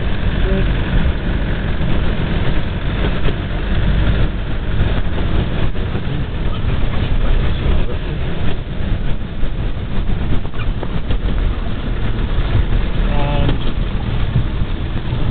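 Engine of a 4x4 running steadily under load, heard inside the cab as it drives along a muddy, rutted off-road track, with frequent small knocks from the cab as it goes over the bumps.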